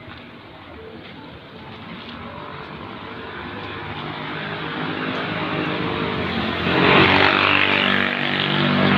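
A motor vehicle's engine passing along the street, growing louder over several seconds and loudest as it goes by about seven seconds in, then swelling again near the end.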